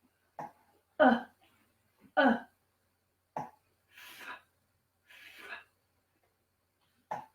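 A voice sounding out letters in a phonics drill: a few short clipped syllables, then two drawn-out breathy 'fff' hisses, the sound of the letter F.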